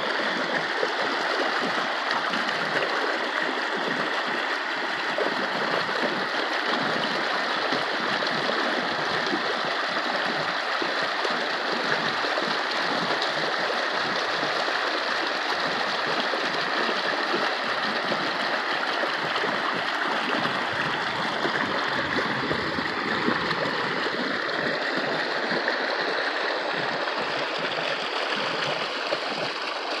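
Mountain stream tumbling over rocks in small cascades: a steady rush and splash of water.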